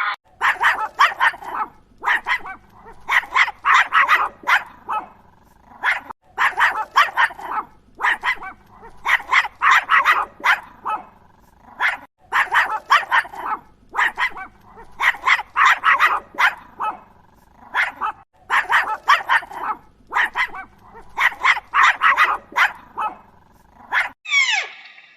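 Dog barking repeatedly in quick runs of several barks, with short pauses between runs; it stops about a second before the end.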